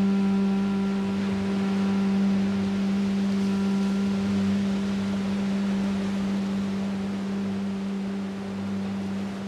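Hybrid duduk holding one low, steady note that slowly fades, with waves washing in behind it.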